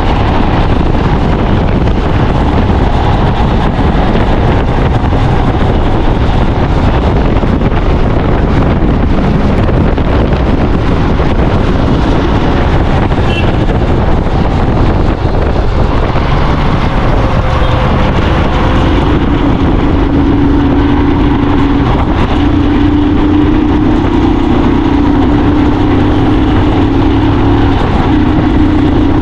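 Royal Enfield 450 cc single-cylinder engine running while the motorcycle is ridden, with wind rush on the helmet-mounted microphone. The engine note steadies and grows stronger in the last third.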